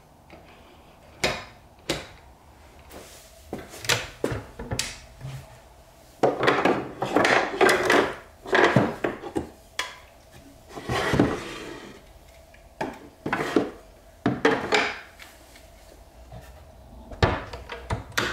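Handling noises in a woodshop: scattered knocks and clatter of wooden pieces and hand tools, with several longer scraping, rummaging stretches around the middle. A wooden cabinet door shuts with a sharp knock near the end.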